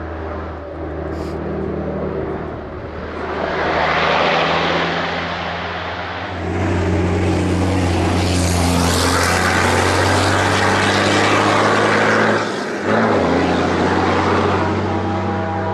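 Heavy diesel engine of a Dakar rally race truck running hard uphill, unseen at first and growing louder as it approaches. The engine note dips briefly near the end, then picks up again.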